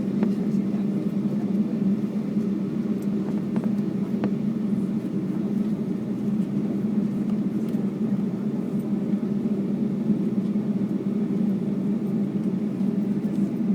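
Steady engine and airflow noise heard inside the passenger cabin of a Boeing 757-200 airliner, a constant low rumble without change in pitch or level.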